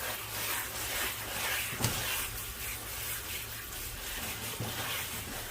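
Water splashing as a basket of tender Dolsan mustard-green leaves is washed by hand, with one light knock about two seconds in.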